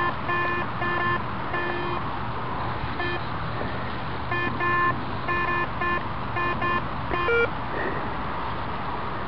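Garrett Ace 250 metal detector beeping as its coil sweeps back and forth over a target: about a dozen short, low-pitched tones in irregular bursts, with a pause of about a second midway and a slightly higher beep at the end. The signal is from a hot rock, a mineralised stone rather than metal.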